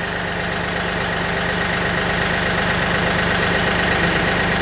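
Kioti DK-series tractor's diesel engine running steadily with a high whine on top, growing gradually louder as the backhoe hydraulics work the outriggers down to the ground.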